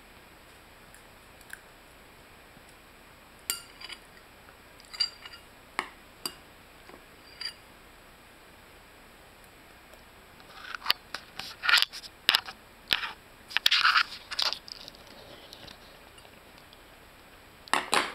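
A toddler eating Cheerios with a spoon: a few scattered light clicks, then a run of louder crunches, clicks and scrapes from about eleven to fifteen seconds in, and one more near the end.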